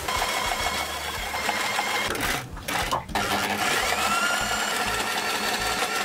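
Kayser electric sewing machine running, stitching a dinghy seat cover. It stops briefly twice about halfway through, then runs on with a rising whine as it speeds up again.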